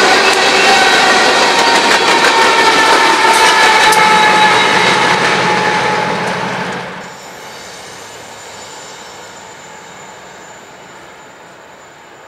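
Loaded coal hopper cars rolling past on jointed track, their wheels squealing on the rail. A BNSF diesel locomotive at the rear of the train adds a low engine hum about four seconds in. The sound drops off sharply about seven seconds in as the train moves away, fading into a low rumble.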